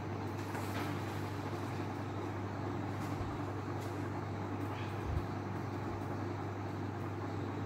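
Steady low hum under an even background hiss, with a couple of faint low bumps partway through.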